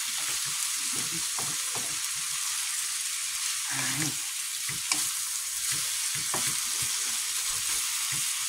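Sliced onion, peppers, cabbage and tomato sizzling steadily in hot olive oil in a frying pan, with occasional taps and scrapes of a utensil stirring them.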